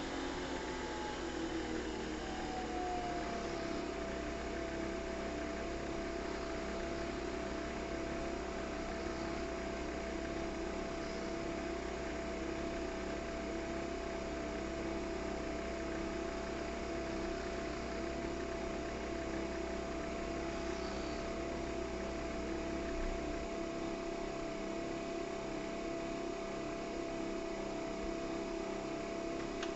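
Nespresso Vertuo Next brewing: the motor spinning the capsule runs with a steady whine after its pitch falls and settles about three seconds in. A low hum underneath cuts off about three-quarters of the way through.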